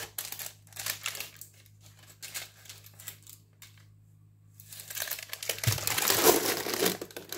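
Baking paper rustling and crinkling in a few short rustles, then a louder stretch of crinkling from about five seconds in, with a dull thud as a metal baking tray is turned over and set down on the paper.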